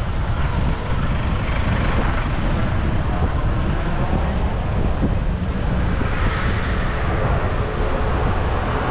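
Steady wind rumble on the microphone of a camera riding along a city street, with road traffic noise mixed in.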